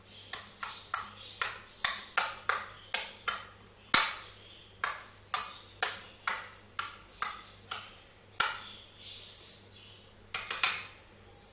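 Metal spoon striking a small ceramic bowl over and over, sharp ringing clinks about two or three a second, as it chops and mashes roasted, peeled eggplant. The clinks pause for about two seconds near the end, then a few more come.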